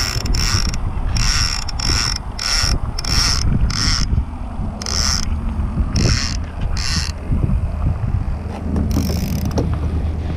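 Conventional fishing reel ratcheting in short bursts, about a dozen of them spaced irregularly, with a longer one near the end.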